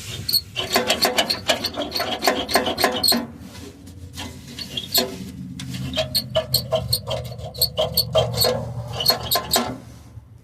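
Loose metal part by the gas tank rattling against the exhaust pipe in quick, irregular clattering bursts, in two spells with a short lull about four seconds in: the source of the car's rattle.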